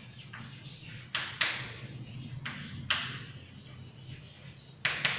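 Chalk writing on a blackboard: sharp taps and short scratchy strokes of the chalk, coming in small clusters with pauses between them.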